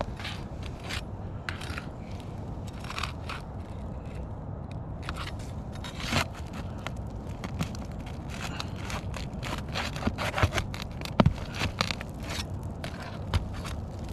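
Steel flat bar scraping and prying under brittle asphalt roof shingles, breaking their seals with irregular scrapes and crackles. A few sharper knocks come about ten to eleven seconds in.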